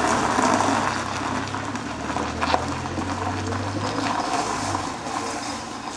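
A minivan driving slowly away over gravel: tyres crunching on the stones over the low, steady running of its engine, getting a little quieter near the end.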